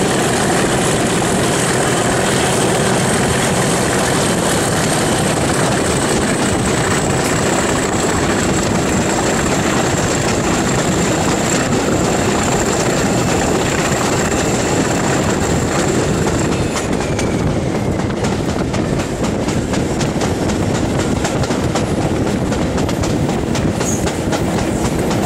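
Class 37 and Class 31 diesel locomotives hauling a train at speed, heard close up from a window behind them: a steady engine drone with a high whine over it, rushing air, and wheels clicking over the rail joints. About two thirds of the way through the sound eases slightly and the rail clicks come through more clearly.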